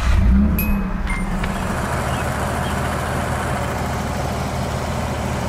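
1986 Nissan 300ZX's V6 engine starting: it catches with a brief flare of revs in the first second, then settles into a steady idle.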